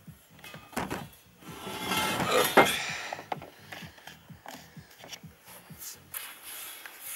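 Handling noise: a few knocks, then a louder rattling scrape about two seconds in, as a steel bar is shifted on a wooden pallet and a brush is worked in a plastic tub of anti-rust paint. Light ticks and brushing follow.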